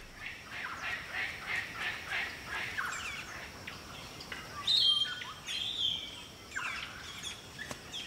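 Wild birds chirping and calling: a quick series of short chirps, then higher, longer whistled notes in the second half.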